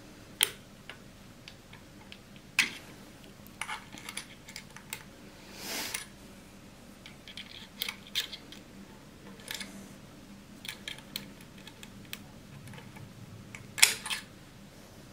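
Irregular small metallic clicks and taps as a hex key works the grub screws of a metal polar-scope adapter ring on a telescope mount, with light handling noise. A soft rustle comes about six seconds in, and a sharper click near the end.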